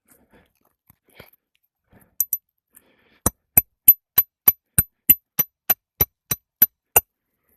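Hammer striking a steel roof snake to drive a roofing nail under the overlapping shingle, metal on metal. Two light taps come first, then a run of about a dozen quick, even blows, about three a second, each with a sharp ring.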